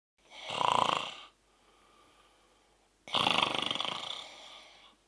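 A man snoring in his sleep: two long snores, the second starting about three seconds in.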